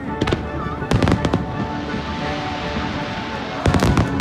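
Aerial fireworks shells bursting with sharp bangs, one cluster about a second in and another near the end.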